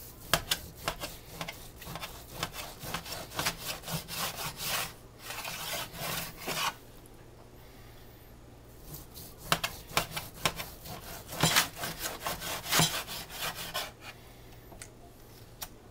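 Carving knife sawing back and forth through a smoked sirloin tip roast and scraping the cutting board beneath, in two spells of rapid strokes with a pause of about two seconds between them.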